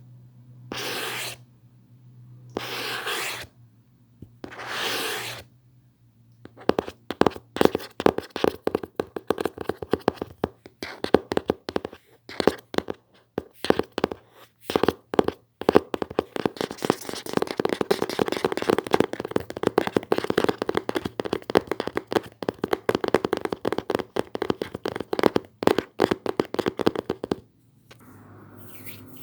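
Close-miked ASMR trigger sounds made by hand: four short swishes about two seconds apart, then a long run of rapid, dense crackly ticking that stops suddenly near the end.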